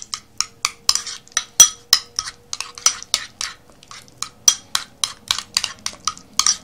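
Metal spoon clinking against the side of a bowl while stirring thick sour cream with grated garlic: quick regular clinks, about four a second, with a short pause about halfway through.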